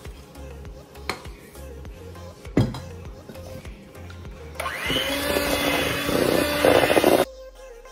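Electric hand mixer switched on, spinning up and beating flour into cookie dough for about two and a half seconds, then cutting off suddenly. A single knock comes before the mixer starts, and background music plays throughout.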